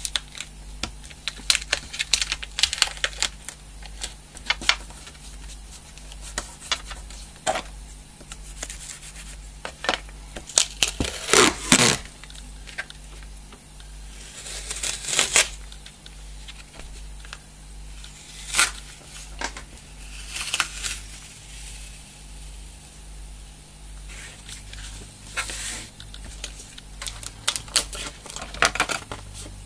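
Brown packing tape being pulled off its roll in several crackling rips, the loudest about a third of the way in, with small taps and rubbing as hands press the tape down onto chipboard.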